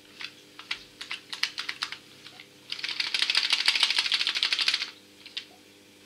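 DesertWest plastic air-vent phone holder with a smartphone clamped in it, clicking as it is handled, then rattling rapidly for about two seconds as it is shaken hard. The phone stays held in its grip.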